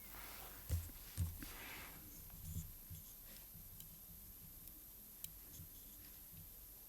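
Faint taps and clicks of watchmaker's tools handling a small mechanical watch movement being dismantled: a few short knocks in the first three seconds, the loudest two close together near the start, then scattered light ticks.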